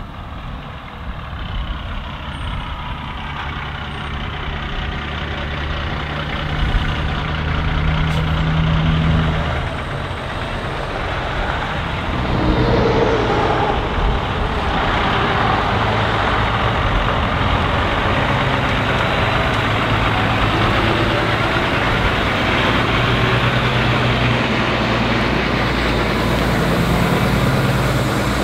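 Semi truck's diesel engine hauling an oversize load on a lowboy trailer. It approaches and grows louder over the first dozen seconds, then runs close by at low speed with a broader rushing noise.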